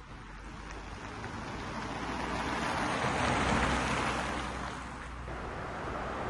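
Road traffic: a passing vehicle's noise swells to a peak a few seconds in and fades away.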